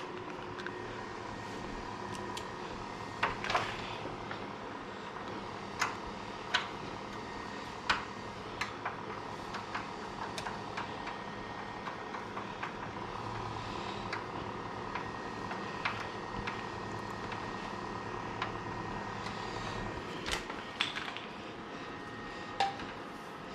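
A steady hum with several faint steady tones, broken by a dozen or so sharp light clicks and knocks at irregular intervals.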